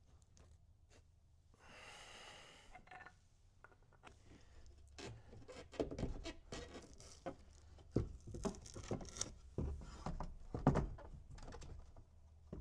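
Irregular clicks, knocks and clatter of hardware and interior panel parts being handled, with a short rustling hiss about two seconds in; the knocking thickens in the second half.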